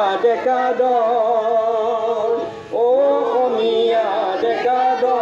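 A group of voices singing an Assamese song in long, held notes to harmonium accompaniment, with a brief break about two and a half seconds in before the next phrase begins.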